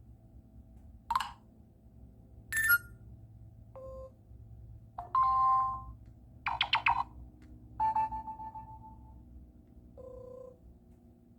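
A cell phone's notification sounds played one after another: about seven short electronic chimes and beeps, each different, with gaps between them. Some are two-note figures dropping from a higher to a lower tone, one is a quick run of notes and one is a single tone that fades away.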